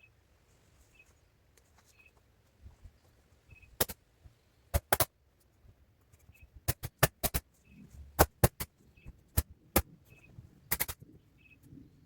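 A series of sharp knocks, about a dozen in quick pairs and small clusters, over a faint high chirp that repeats roughly once a second.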